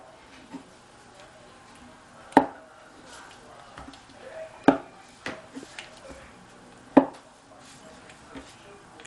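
Pizza cutter wheel pressed down through a slab of homemade marshmallow, knocking on the wooden cutting board three times, about every two seconds, with a few lighter taps between.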